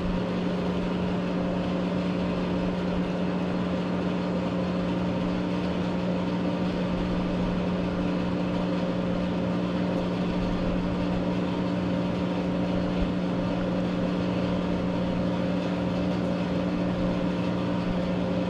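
Steady machine hum with one strong low tone and fainter higher tones above it, unchanging in pitch and level.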